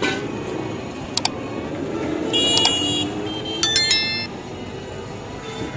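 Steady street background noise with a sharp click about a second in, then two bright metallic rings, at about two and a half and three and a half seconds in, the second ring the loudest.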